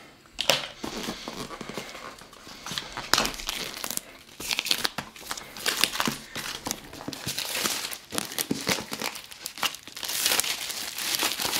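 Clear plastic shrink-wrap being torn and peeled off a cardboard box and crumpled by hand: continuous crinkling and crackling with many sharp crackles.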